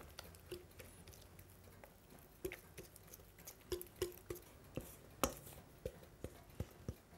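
Faint, irregular taps and scrapes as carrot cake batter is scraped out of a stainless steel mixing bowl into a round cake tin.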